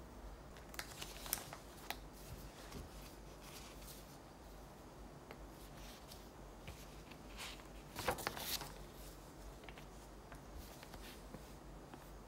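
Faint rustling of paper as book pages are lifted and turned, in short scattered bursts with light ticks, the loudest about eight seconds in.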